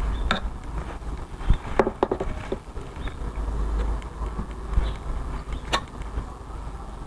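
Body filler being spread and scraped over a fiberglass door panel with a makeshift applicator: scattered short scrapes and clicks over a low rumble.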